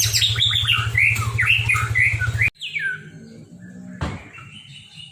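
White-rumped shama (murai batu) singing a fast, varied run of whistled notes and glides, its song laced with odd mimicked sounds, over a low steady hum. The sound cuts off suddenly about two and a half seconds in. It goes on quieter with a few scattered notes, and a single knock comes about four seconds in.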